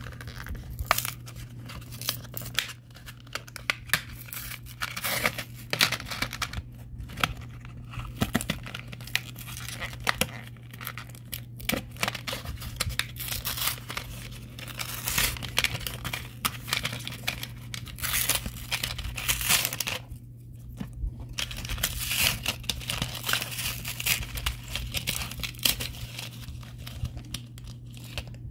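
Plastic blister pack being peeled and torn open by hand, a long run of irregular crackling, crinkling and tearing with a brief lull about two-thirds of the way through, over a steady low hum.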